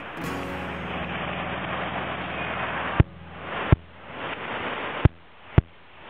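Rough, steady rush of breaking surf and wind on the camera microphone, with a low hum under it. Past the halfway point the rush drops away and swells again, broken by four sharp clicks.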